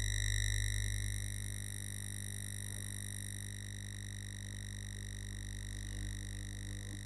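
Steady electrical hum with a high-pitched whine and its evenly spaced overtones, a constant background tone on the recording, a little louder in the first second or so.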